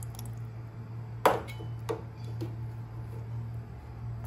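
A sharp metal clink about a second in, then two lighter knocks: a steel tumbler tapping the rim of a pressure cooker as soaked tamarind water is poured in. A steady low hum runs underneath.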